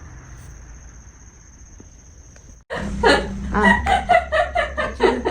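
Low background hum, then after a sudden cut about two and a half seconds in, people laughing in quick repeated peals.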